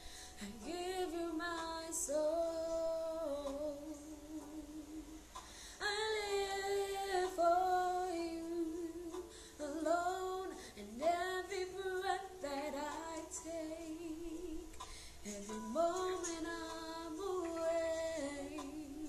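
A woman singing a worship song solo, in long phrases with held notes; each new phrase opens with an upward slide in pitch, about every four to five seconds.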